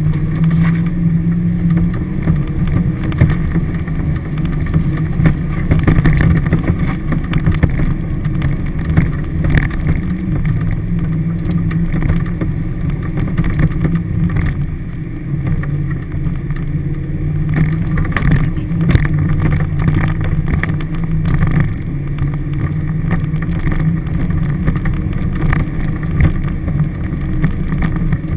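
Toyota Hilux four-wheel drive heard from inside the cab as it drives a rough bush track: a steady engine drone with frequent knocks and rattles from the body as it jolts over bumps, more of them about ten seconds in and again near two-thirds of the way through.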